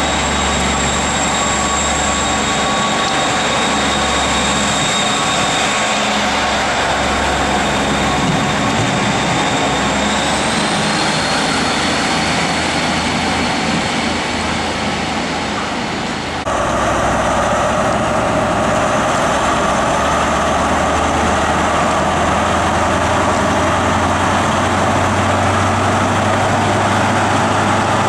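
Class 153 single-car diesel unit's engine working as it pulls away, with a high whine that rises in pitch about ten seconds in. About sixteen seconds in, the sound changes abruptly to the steady running of an HST Class 43 diesel power car's engine.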